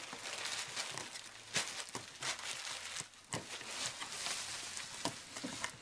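Paper and plastic crinkling and rustling with irregular crackles and a few sharp ticks as a cardboard present box is cut open with a table knife and its packing handled.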